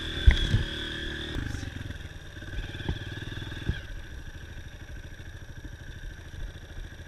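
Dirt bike engine running, then dropping to a slower, lower putter about a second and a half in as the throttle closes, with a few sharp knocks and clatter.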